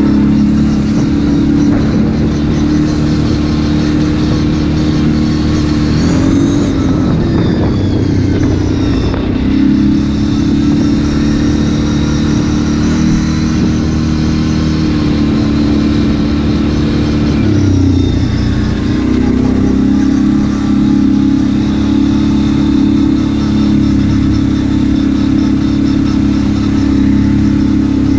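ATV engine running on the trail at a steady throttle. Its pitch dips and climbs again twice, about a quarter of the way in and again past the middle, as the throttle is eased off and reopened.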